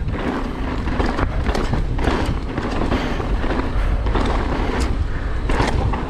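Mountain bike rolling fast down a rough dirt trail: steady tyre and wind rush on the microphone with a strong low rumble, broken by frequent short knocks and rattles from the bike over roots and rocks.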